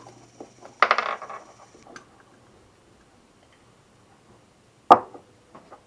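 Small metal carburetor parts clinking and clattering as they are handled and set down: a ringing clatter about a second in, then a single sharp metallic clink near the end.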